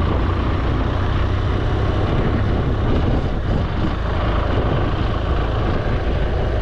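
BMW R1200GS Adventure ridden at motorway speed: a steady rush of wind over the rider with the boxer-twin engine and tyres droning underneath, unbroken throughout.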